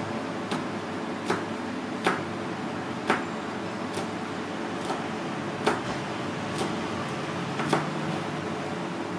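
Metal kitchen utensils clinking and knocking sharply at irregular intervals, roughly once a second, over a steady background rush.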